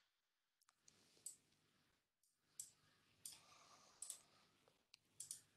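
Faint computer mouse clicks, about half a dozen spaced irregularly over a few seconds, against near silence.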